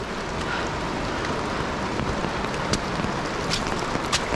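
A steady watery hiss, with a few sharp scuffs of footsteps on a wet, leaf-covered rocky trail.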